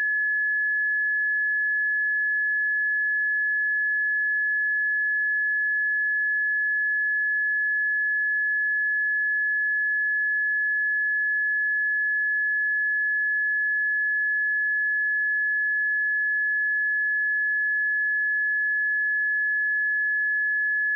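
A pure 1707 Hz sine-wave test tone, one steady high-pitched tone held at a constant level without change.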